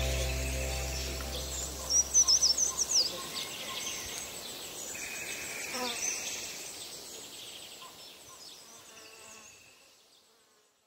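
Woodland birdsong with a loud run of about six quick, sweeping high whistled notes about two seconds in, then scattered chirps over a faint insect-like hum. It fades out to silence near the end.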